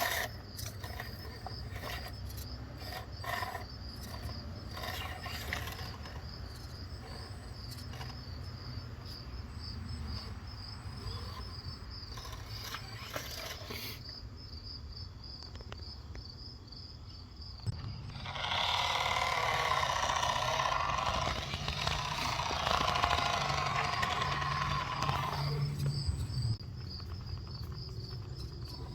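Radio-controlled FMS Atlas 6x6 truck's motor and gearbox running, with scattered clicks early on and a louder whine for about eight seconds past the middle; the transmission is one the owner says had been making noise. Crickets chirp steadily throughout.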